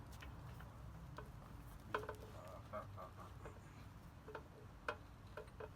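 Faint, irregular light clicks and clinks of metal parts being handled while a motorcycle front wheel, spacer and axle are fitted. The two sharpest come about two seconds in and near five seconds in.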